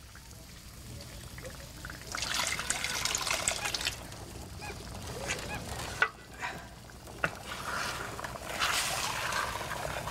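Pork pieces frying in a hot pan, sizzling, with two louder bursts of sizzling about two seconds in and again near the end, and a couple of sharp knocks against the pan in between.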